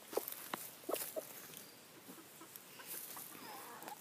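Chickens clucking softly: a few short clucks in about the first second, then only faint clucking.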